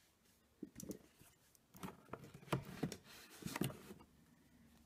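Manga volumes handled in a cardboard shipping box and lifted out: a scatter of light knocks, scrapes and rustles.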